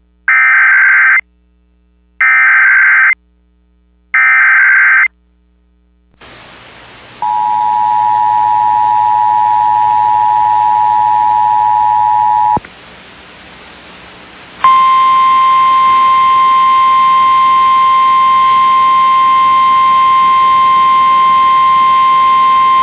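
Emergency Alert System tones opening a tornado warning: three short data-header bursts about two seconds apart, then the two-tone attention signal for about five seconds over radio hiss. After a brief pause, a single steady NOAA Weather Radio alert tone starts and keeps going.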